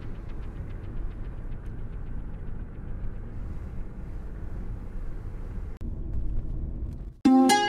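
Steady low rumble of a car driving along a road, heard from inside the vehicle. Plucked-string music cuts in abruptly near the end.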